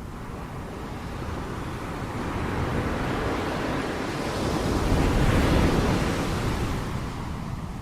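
Ocean wave building, breaking and washing in: a rushing surge that swells over several seconds, peaks about two-thirds of the way through, and then recedes.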